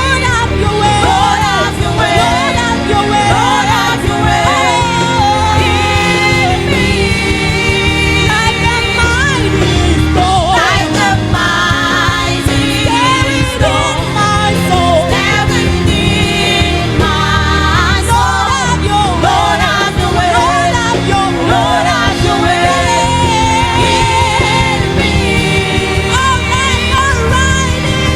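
Gospel worship song: voices singing a melody over a full band accompaniment.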